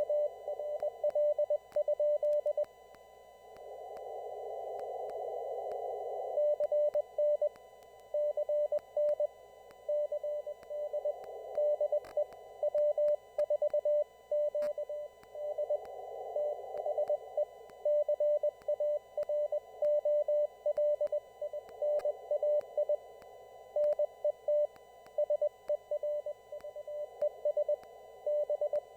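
Morse code received on an amateur radio: a single steady tone keyed on and off in dots and dashes, as stations in a CW traffic net send, over band hiss through a narrow receiver filter. The hiss rises in the pauses between transmissions, a few seconds in and again about halfway through.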